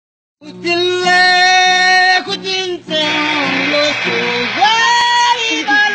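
A man singing loudly in a high voice, holding long notes, while strumming an acoustic guitar.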